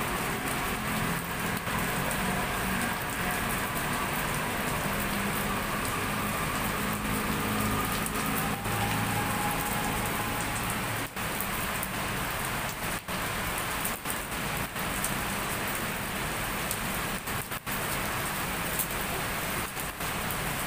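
Heavy rain falling steadily, a dense even hiss of downpour, with a low hum underneath during the first half.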